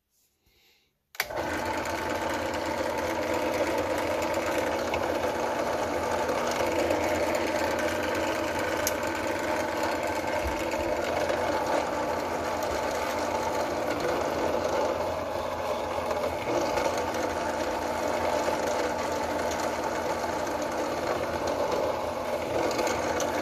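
Benchtop drill press motor running steadily, starting abruptly about a second in, while a tiny punch held in its chuck is run through leather to make stitching holes.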